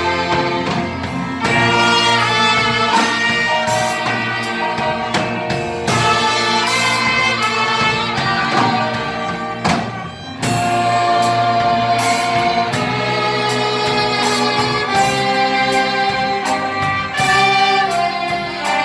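Church orchestra of strings and brass playing a hymn with held melodic notes, the sound dropping briefly at a phrase break about halfway through.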